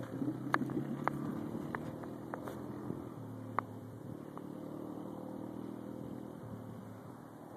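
2001 Yamaha YZ125 two-stroke single-cylinder dirt bike running, its engine note shifting up and down a few times as it rides. Several sharp clicks sound in the first few seconds.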